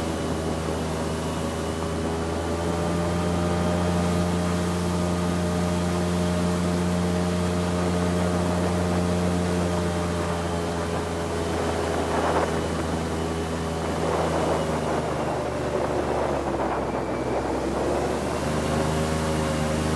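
Airboat's engine and air propeller running steadily at speed, the pitch sagging slightly and then starting to climb again near the end.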